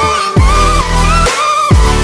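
Electronic dance music: a synth melody over a heavy bass whose notes slide steeply down in pitch twice.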